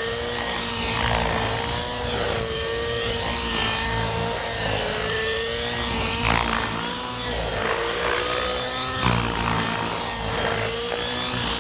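Radio-controlled helicopter flying 3D aerobatics: a steady whine from the rotor and drivetrain that wavers up and down in pitch, with repeated swishes from the rotor blades, loudest about six and nine seconds in.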